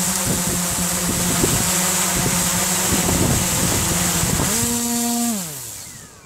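DJI Inspire quadcopter's four motors and propellers whirring steadily on the ground. About five seconds in, the whine drops in pitch and fades as the motors spin down.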